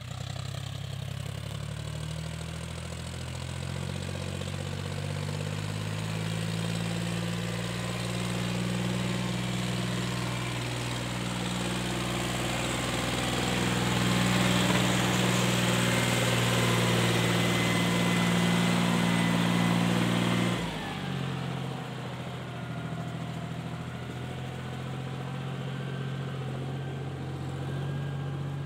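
John Deere 5050D tractor's three-cylinder diesel engine running hard under load, towing a trolley loaded with soil up a dirt ramp. It grows louder as the tractor comes close, then the engine note drops suddenly about two-thirds of the way in and runs on quieter.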